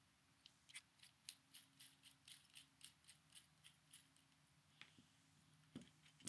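Faint, quick, regular ticking, about four ticks a second, as a small T6 Torx body screw is turned out of a pocket knife's frame with a bit driver. It stops about four seconds in, and a few separate light clicks follow near the end.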